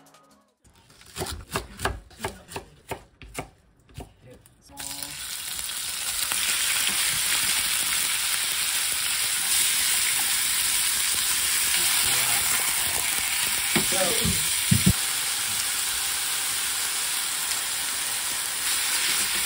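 Thinly sliced beef sizzling in a frying pan as it is stir-fried, a steady hiss that sets in suddenly about five seconds in. Before it come a run of separate clicks and knocks, and there is a short squeak and two sharper clicks about two thirds of the way through.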